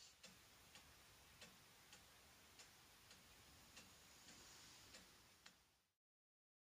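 Near silence with faint, even ticking, about two ticks a second in a tick-tock rhythm. The sound cuts off about six seconds in.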